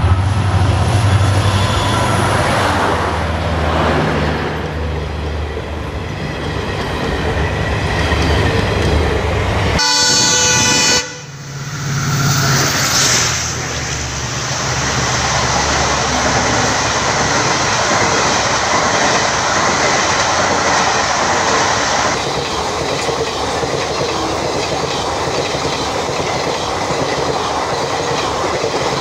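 A diesel locomotive hauling a passenger train approaches, its engine running with a steady low hum, and a short horn blast sounds about ten seconds in. Passenger coaches then rush past with steady wheel and rail clatter.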